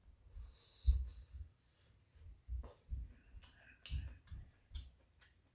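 Close-miked eating of shrimp tteokbokki: chewing with many wet mouth clicks and smacks, soft low thuds, and a short hiss of breath or slurp about a second in.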